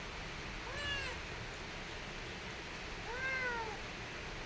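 Kitten meowing twice, each a short call that rises then falls in pitch; the second, about three seconds in, is a little longer than the first.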